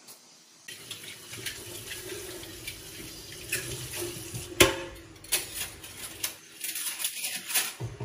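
Water sounds: running or bubbling water with scattered small clicks and clinks, and one sharper knock about halfway through.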